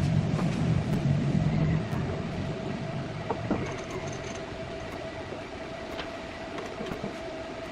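Electric hand drill running with a steady whine, heavier and louder for about the first two seconds, then settling to a lighter steady run.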